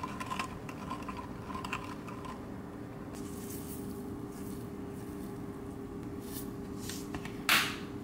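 Seeds shaken from a plastic shaker bottle onto a wooden spoon over a glass jug of marinade: a few soft hissing shakes, then one short, louder shake near the end. A few light clicks of kitchen handling come in the first two seconds, over a steady faint hum.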